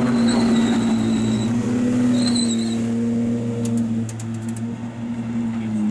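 Car engine idling steadily with an even hum. A faint high whine comes and goes twice in the first three seconds.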